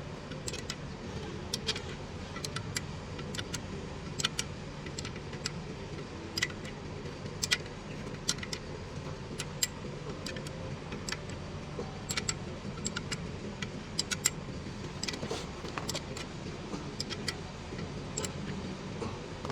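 Irregular light metallic clicks and clinks of hand tools on metal parts, over a steady low hum.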